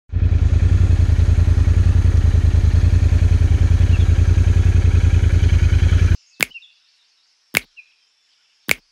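Royal Enfield Interceptor 650's parallel-twin engine running steadily under way, with a fast even exhaust pulse. It cuts off abruptly about six seconds in. Three short sharp hits follow about a second apart.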